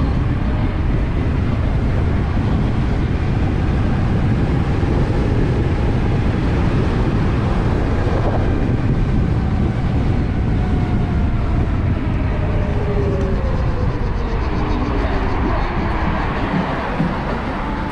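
Heavy wind and road noise from riding an electric motorcycle, with faint motor whines sliding up and down in pitch.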